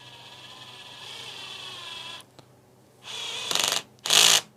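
Bosch Professional cordless drill driver on its lowest torque setting (1) driving a long screw into hard wood. The motor runs with a steady whine for about two seconds, then stops. Near the end come short loud bursts of the clutch ratcheting as it slips, showing that setting 1 cannot drive the screw home.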